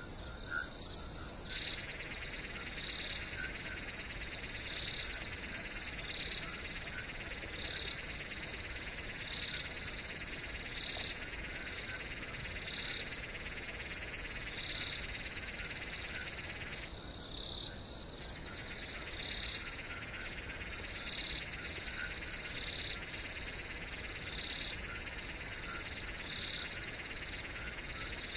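Night chorus of frogs and crickets. A steady high insect trill runs under calls that repeat about once a second. A denser chorus comes in after about a second and a half and drops out briefly about two-thirds of the way through.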